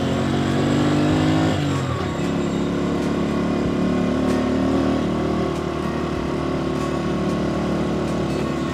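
Motorcycle engine running on the move, its pitch dropping about two seconds in and then holding steady.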